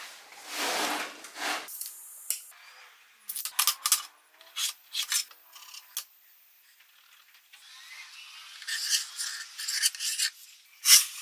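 A plywood sheet is slid into place on a workbench, then a few clicks and short scratching strokes as a pencil marks along a steel ruler, then a compass's pencil lead scratching around a circle on the birch plywood, with a louder stroke near the end.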